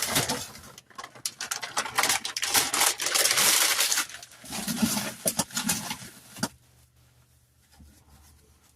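Dry pasta poured into a metal cooking pot, a dense clattering rattle of hard pieces that stops about six and a half seconds in.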